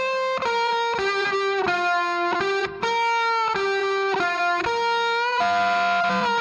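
Background music: a melody of long held notes on an electric guitar, each note lasting about half a second, with no drums.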